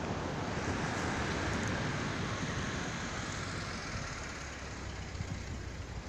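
Road traffic noise that swells over the first few seconds and eases off after about three seconds, over a low rumble.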